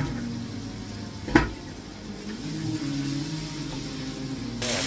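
Onions and tomatoes frying in oil in a pan, sizzling steadily, with one sharp knock of a utensil about a second and a half in. The sizzle gets louder and brighter near the end.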